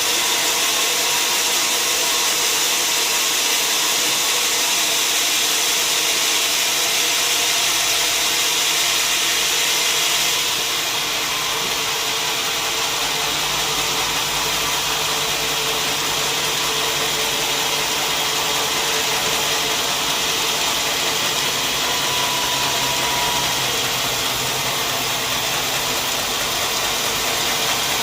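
Sawmill saw and machinery running steadily on acacia wood: a dense, hissing mechanical noise. About ten seconds in the sound shifts lower and a little quieter.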